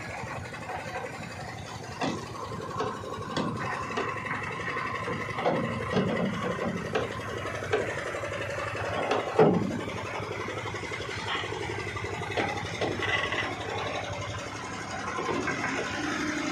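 Heavy truck engine running steadily, with a faint steady whine and several knocks and clunks, the loudest about nine seconds in.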